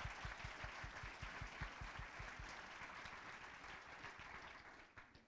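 A large audience applauding, the clapping thinning out and stopping about five seconds in.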